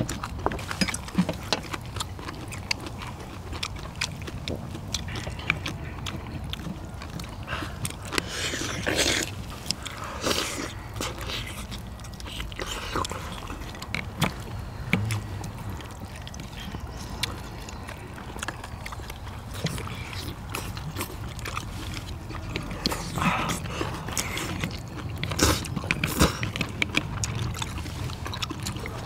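People eating spicy braised seafood: chewing and mouth noises, with many short clicks and clatters of chopsticks against bowls and shells, over a steady low rumble.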